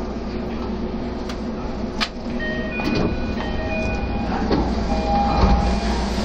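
Toei Ōedo Line subway car standing at the platform, its doors opening with a sharp clunk about two seconds in, followed by a few short electronic chime tones over the steady rumble of the car.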